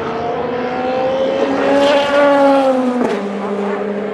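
A race car's engine at high revs going past, its pitch climbing and growing louder for about two seconds, then easing off, with a sudden drop in pitch about three seconds in as it shifts up a gear.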